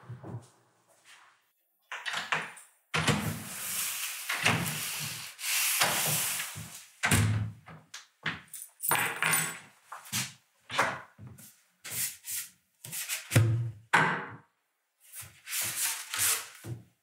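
Handling noises: rustling, rubbing and dull thunks as a cardboard poster tube and clothing are handled and the tube is opened, with a longer stretch of rustling a few seconds in.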